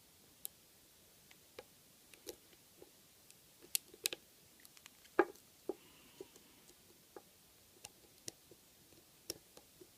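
Lock pick clicking against the pin stacks of a cutaway American 5570 six-pin padlock during picking: small, irregular clicks and ticks, the loudest a sharper click about five seconds in.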